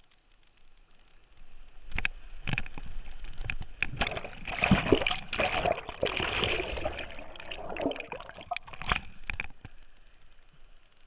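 Whitewater splashing and washing over a kayak's low-mounted camera as the boat runs a small rapid, with sharp splashes from paddle strokes and the hull. It starts about two seconds in, is loudest in the middle while the camera is briefly under water, and dies down near the end.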